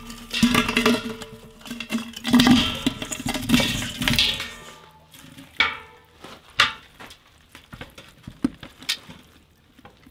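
Chopped vegetables tumbling from a metal bowl into a large stainless steel stockpot, with metal clanks and rattling. In the second half there are quieter, scattered knocks and soft handling sounds as whole chicken carcasses are set into the pot.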